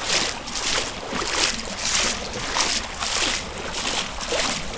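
Legs wading through flood water about a foot deep, splashing and sloshing in a steady rhythm of roughly two strides a second.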